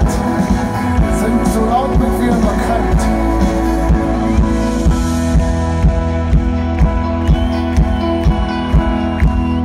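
Live pop-rock band playing an instrumental passage through a concert PA, with guitars over sustained notes. A steady drum beat of about two hits a second stands out in the second half.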